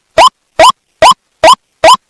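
White-breasted waterhen (ruak-ruak) calls repeated at a steady beat of a little over two a second: five short, loud notes, each rising in pitch, with clean silence between them. This is a looped lure call of the kind played to attract wild waterhens for trapping.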